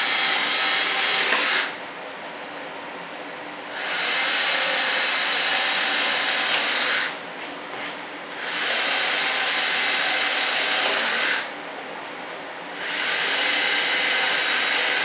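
A cordless drill drilling screw holes into the flange of a wing-tip mold. It runs in bursts of about three seconds with short pauses in between, four times in all.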